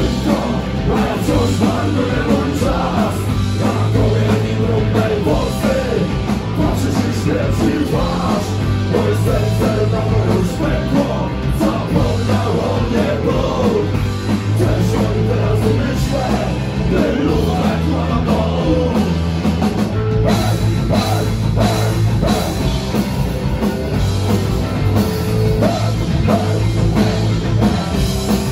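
Live punk rock band playing at full volume: electric guitars, bass, a drum kit, and a singer's vocals.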